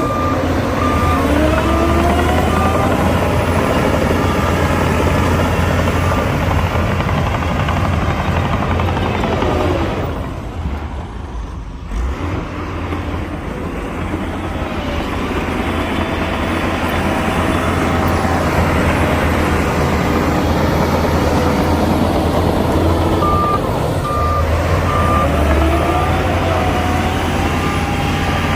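Heavy diesel earthmoving machinery running and revving, with a reversing alarm beeping at a steady pace near the start and again near the end. The engine rises in pitch as each round of beeping plays.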